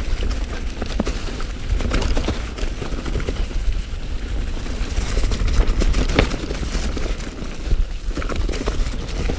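Mountain bike rolling fast down a dirt trail: wind buffeting the handlebar-mounted microphone as a constant low rumble, with tyres crunching over dry leaves and dirt and the bike rattling and clicking sharply over bumps.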